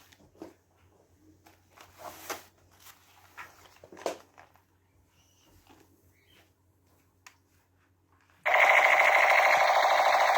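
Faint handling clicks and rustles, then, about eight seconds in, a loud steady buzzing electronic sound effect starts abruptly, typical of a battery-powered toy gun.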